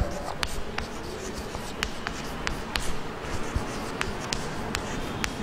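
Chalk writing on a blackboard: scratching strokes with sharp chalk taps at irregular intervals, over steady background noise.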